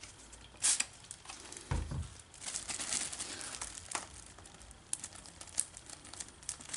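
Thin plastic zip-lock bag crinkling and rustling in irregular crackles as it is handled and pressed shut, with a dull thump about two seconds in.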